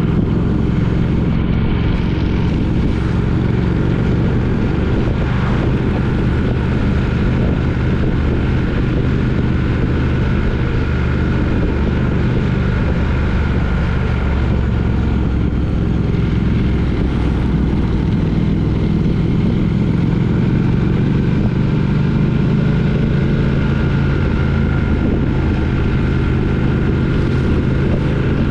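Triumph Speed Twin 900's parallel-twin engine running steadily under way, heard from on the motorcycle, with a noisy rush over the engine note.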